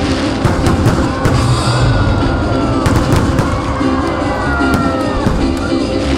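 Fireworks bursting with sharp bangs and crackles, heard over loud music with a steady beat.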